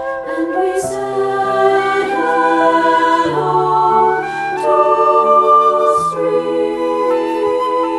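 Two-part treble choir singing long held notes over a delicate piano accompaniment, the chords changing about a second in, a little past three seconds and at six seconds.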